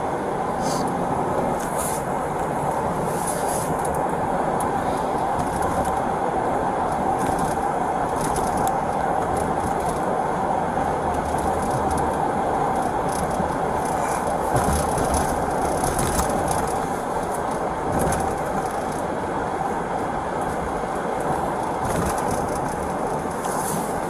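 Steady road and engine noise inside a moving police patrol car, picked up by a body camera worn by the driver, with a few faint clicks and rustles.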